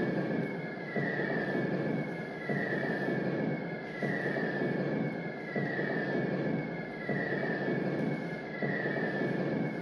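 A looped electronic soundscape: a rushing, rumbling noise with a whistle-like tone that falls in pitch, the same pattern repeating about every second and a half.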